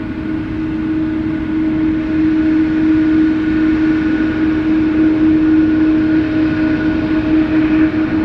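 Jet airliner engines running loud and steady, with a strong held hum over a roar that swells a little through the middle and eases near the end.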